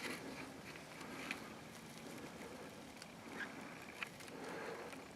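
Faint rustling with a few scattered light taps and clicks, from people crawling quietly through the grass toward a hunting blind.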